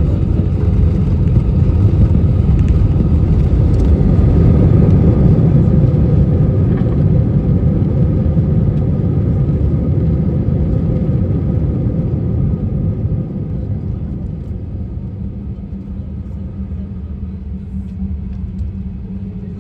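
Airliner cabin rumble during the landing rollout: a loud, steady low roar of engines and wheels on the runway that eases to a quieter taxiing rumble about thirteen seconds in, as the aircraft slows.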